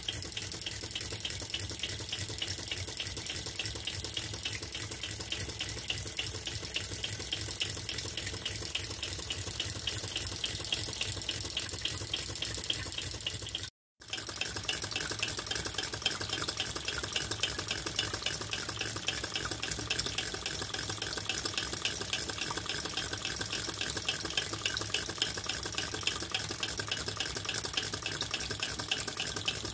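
Water splashing steadily from the brass spout of a 1950s Empire toy water pump into its tray, the pump worked by a Tarot Stirling engine, with an even, rapid clicking from the running engine and pump linkage. The sound breaks off for a moment about halfway through.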